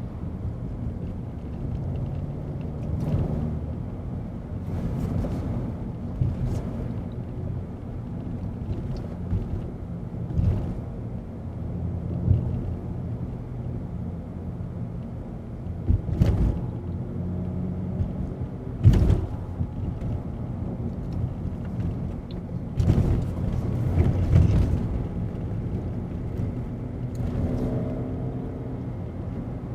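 BMW E90 330i's N52 3.0-litre straight-six engine heard from inside the cabin, running through a BMW Performance rear silencer with the midpipe replaced by a straight pipe. It is a steady low drone with several short thumps, and the revs rise near the end.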